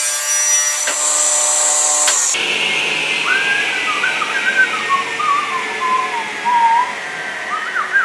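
A power saw runs with a steady high whine through a rough cut in 3/4 inch plywood, and stops a little over two seconds in. After that a person whistles a wandering tune over a steady hiss.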